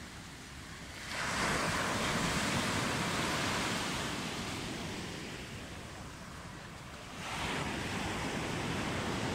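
Small waves breaking on a sandy shore, the surf noise swelling twice: about a second in and again near the end.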